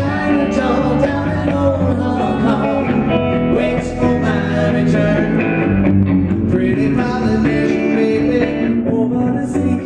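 Live rock-and-roll band performance: a man singing over electric guitar and electric bass.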